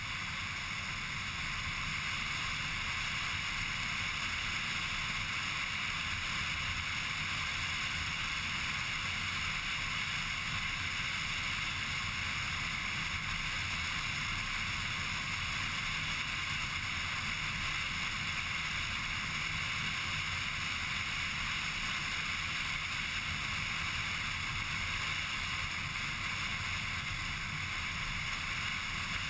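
A car being driven at speed along a country road: steady rushing wind and road noise with a low rumble underneath, unchanging throughout.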